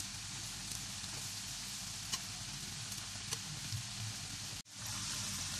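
Vegetable pakoras deep-frying in hot oil: a steady sizzle with small scattered pops and crackles. The sound cuts out for an instant about four and a half seconds in, then fades back.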